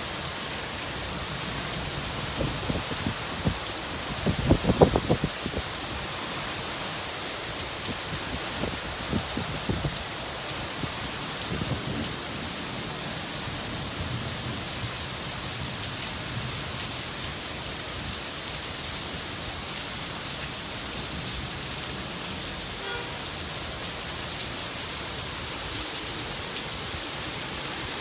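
Heavy rain falling steadily. Thunder rumbles and crackles from about two seconds in, loudest near five seconds, with fainter rumbles near nine and twelve seconds.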